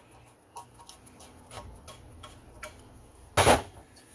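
Light metallic clicks and ticks of a screwdriver and small screws being worked into the breaker-points plate of a vintage chainsaw's magneto, with one louder, brief clatter about three and a half seconds in.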